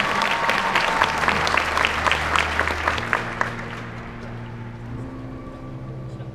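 Audience applause with sharp close-by claps that thin out and fade over about three and a half seconds. Under the applause, the marching band holds low sustained notes.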